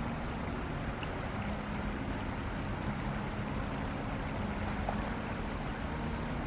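Steady rushing noise of a small river's flowing water, with a faint low steady hum underneath.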